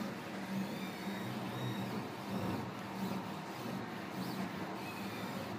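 Accucraft i250 FDM 3D printer running a print: a steady machine hum that swells and eases as the print head moves, with a few faint short whines that glide up and down.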